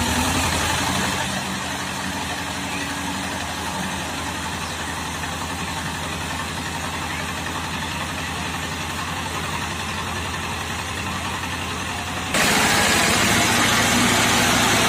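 HMT 1811 tractor's diesel engine idling steadily. About twelve seconds in it becomes suddenly louder, heard up close beside the engine.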